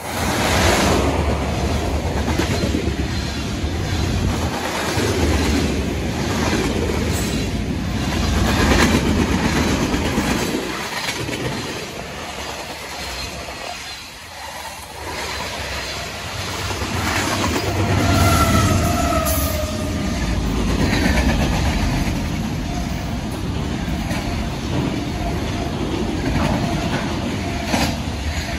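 Freight train cars rolling past at close range: a steady rumble and clatter of wheels on the rails that swells and eases as the cars go by. A brief high wheel squeal comes a little past halfway.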